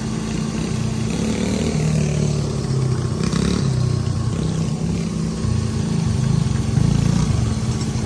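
Mini bike engine revving up and down as it rides along, over a vehicle engine idling steadily.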